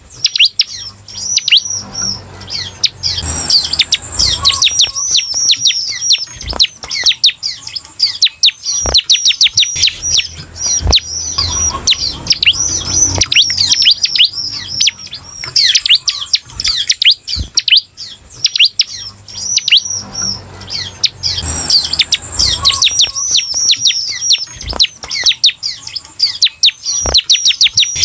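Caged ciblek (prinia) singing a fast, unbroken chatter of quick, high, falling notes, with a short high buzzy trill twice. A few sharp ticks break in now and then.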